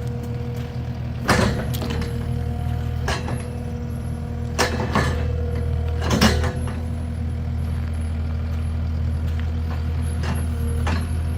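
A large engine running steadily, with a handful of sharp metallic clanks and knocks, the loudest about a second in and about six seconds in.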